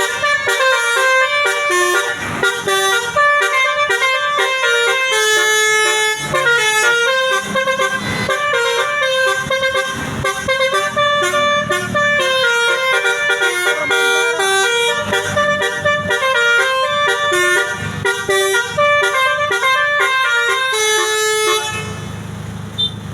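Bus telolet horn, the multi-tone musical air horn of a Basuri tour bus, playing a long, fast tune of stepped notes that stops shortly before the end.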